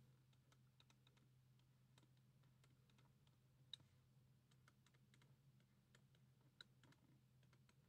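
Near silence with faint, scattered clicks and taps, a stylus tapping on a tablet while handwriting, two a little louder about four seconds in and near six and a half seconds, over a low steady hum.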